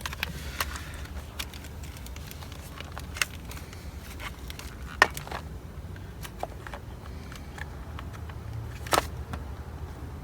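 Scattered light clicks and knocks of small parts and tools being handled while a steering wheel is swapped, the loudest about halfway through and again near the end, over a steady low hum.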